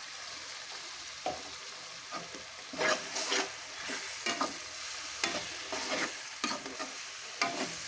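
Freshly added ground onion-tomato masala paste sizzling in hot oil in a frying pan, stirred with a slotted steel spatula. Steady sizzle with irregular scraping strokes of the spatula against the pan, which come more often from about three seconds in.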